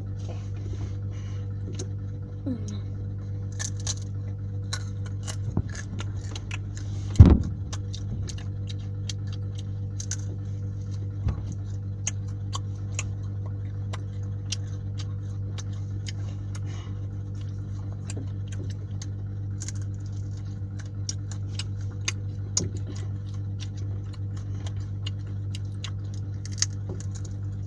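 Steady low electrical or motor hum, with scattered small clicks and taps of food and utensils being handled while eating, and one sharp knock about seven seconds in.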